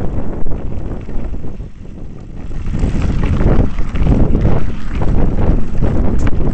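Loud wind buffeting the microphone of a mountain bike riding fast down a gravel track, mixed with the rumble of the tyres on the loose surface. It eases for a moment about two seconds in, then picks up again.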